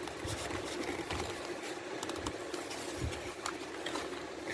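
Faint clicks and rustles of a DVD case and its booklet being handled and opened, over a steady low hum.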